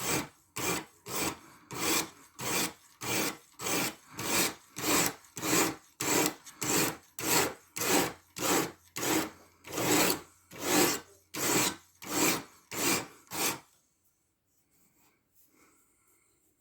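Knife edge of 14C28N steel being stroked along a coarse 120-grit diamond sharpening stone on a guided sharpener: a steady rhythm of scraping push strokes, about one and a half a second. The strokes stop a few seconds before the end, leaving near silence.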